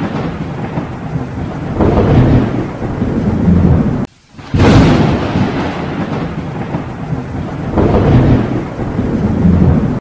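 Thunderstorm sound effect: steady heavy rain with rolling thunder that swells and fades several times. About four seconds in the sound drops out for a moment, then comes back suddenly with a loud thunderclap.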